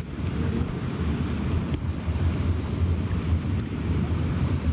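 Steady rushing noise of a running stream, mixed with wind buffeting the microphone, which gives a deep rumble throughout.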